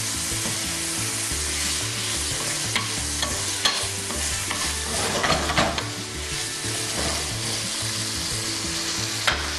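Cubes of beef sizzling as they fry in hot oil in a pan, stirred and turned with a wooden spoon that scrapes against the pan a few times.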